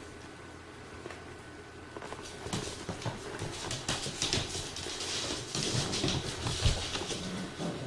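Puppies play-fighting: scuffling, with quick irregular clicks and patter of paws, starting about two seconds in and getting busier and louder toward the end.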